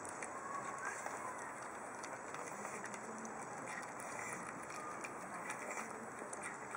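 Pug puppy eating soft food from a bowl: faint wet smacking and small clicks of chewing, over a steady outdoor background with a few faint bird chirps.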